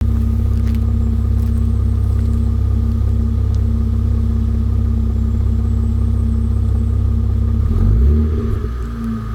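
Mitsubishi Galant's 2.5-litre V6 idling steadily through a home-made exhaust. Near the end comes one short throttle blip that rises in pitch and falls back to idle.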